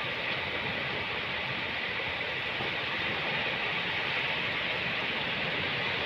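Ocean surf washing onto a beach: a steady rush of waves with no distinct breaks.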